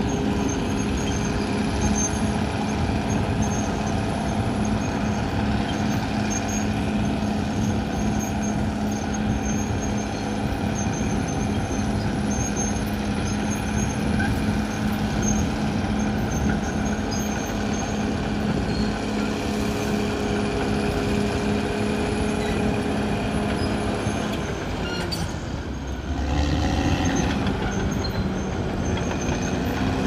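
Caterpillar D6R XL bulldozer working, its diesel engine running steadily with a steady whine. About 25 seconds in, the engine note dips and then climbs again, louder and deeper, as it changes speed under load.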